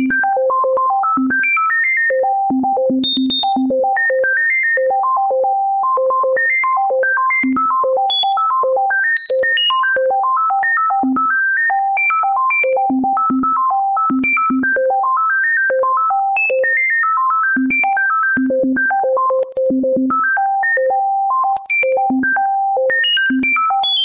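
Synthesized keyboard notes, a sonification of prime numbers: a fast, unbroken stream of short single tones, several a second, leaping irregularly between low and very high pitches with no steady melody.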